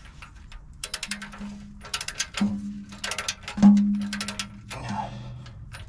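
Ratchet of a click-type torque wrench clicking in about four quick runs as it is swung back between strokes, tightening the oil pan bolts of a Cummins ISX15 toward their 41 lb-ft spec. A low hum comes and goes between the runs.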